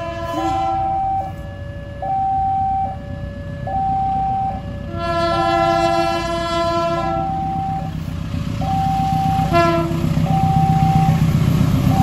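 A level-crossing warning alarm sounds in two alternating tones that step about once a second. Over it the GE CC 201 diesel locomotive blows its chord horn: a long blast from about five seconds in, and a short one near ten seconds. The locomotive's low rumble grows louder as it approaches.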